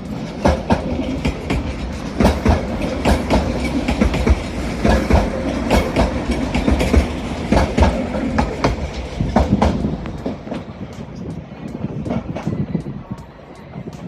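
A Class 197 diesel multiple unit running through the station throat, its wheels clattering over rail joints and pointwork in a fast, irregular run of clicks over a low rumble, loudest in the middle and easing toward the end.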